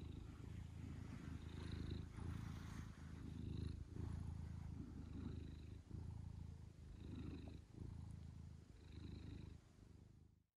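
Senior domestic cat purring right against the microphone, a low purr that swells and dips with each breath about every two seconds; it fades out near the end.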